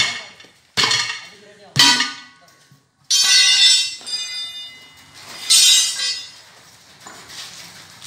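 Hammer blows on the steel rim of an Isuzu NPR truck wheel while breaking the tyre off it: three sharp ringing strikes about a second apart, then two longer ringing metal clangs about three and five and a half seconds in.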